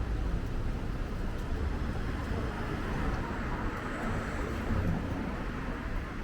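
City street traffic passing, with wind buffeting the microphone in a steady low rumble.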